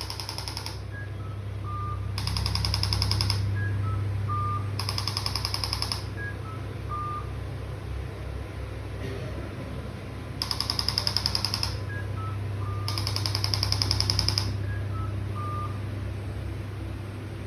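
A handheld electric percussive device firing bursts of rapid, evenly spaced pulses, each burst lasting about a second and a half, over a steady low hum. Short beeps of three notes stepping down sound between the bursts.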